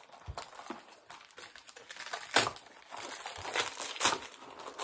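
Wrapping paper crinkling and tearing as a small present is unwrapped by hand, in irregular rustles with two louder crackles, one about halfway and one near the end.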